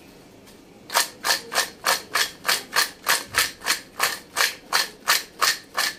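Crisp deep-fried potato cubes rattling against a steel plate as it is shaken to toss them in spices, in even shakes about three a second, starting about a second in. The hard, dry rattle is the sign that the potatoes have fried very crisp.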